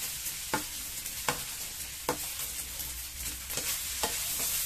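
Fried rice sizzling in a wok over a gas flame while a wooden spatula stirs it, with a steady hiss and several sharp knocks of the spatula against the pan.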